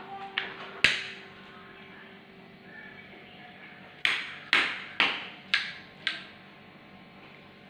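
A toddler's hand slapping a hard tiled floor: two sharp smacks within the first second, then five more about half a second apart a few seconds later.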